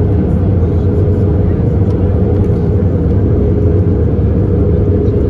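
Steady airliner cabin noise from inside an Airbus A321 in flight: a constant low rumble of engines and airflow with a thin, steady hum.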